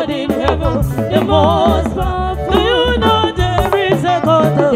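Women singing an Igbo gospel song together, backed by a live band with drum kit and bass keeping an upbeat dance groove.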